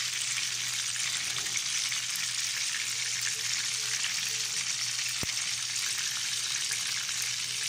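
Chicken karaage pieces deep-frying in hot oil in a pan: a steady sizzle with fine, constant crackling.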